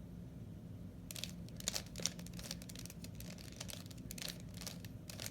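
Plastic 3x3 Rubik's Cube being turned by hand: a run of quick, irregular clicks and clacks as its layers twist, starting about a second in.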